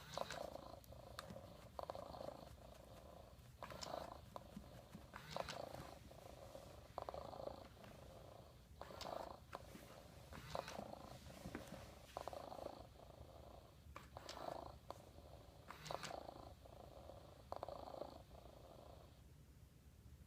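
Hasbro Joy For All robotic cat's electronic purring loop: a soft recorded purr swelling and easing about every one and a half to two seconds, then fading out near the end.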